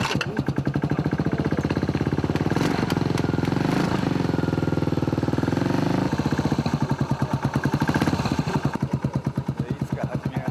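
Cold motorcycle engine, reluctant to start in the cold, running with an even firing pulse. Its revs are up in the middle, drop about six seconds in, and it settles into a slower, pulsing idle near the end.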